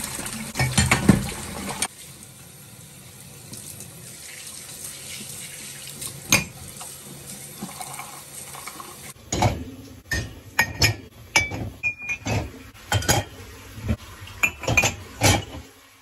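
Tap water running into a stainless steel sink while ceramic mugs and dishes are washed by hand, louder for the first two seconds and then a softer steady flow. From about nine seconds in, a quick run of sharp clinks and knocks of crockery against crockery and the sink.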